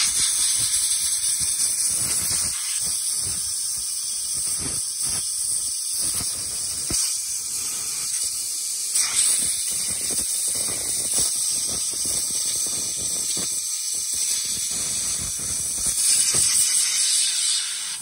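Compressed-air blow gun hissing steadily as it blows the vinegar and loosened gunk out of an open power seat switch's copper contacts, cutting off abruptly at the end.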